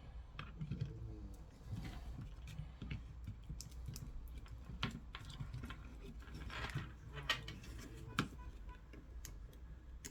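Irregular light clicks and taps of small tools and parts being handled on a workbench, over a low steady hum.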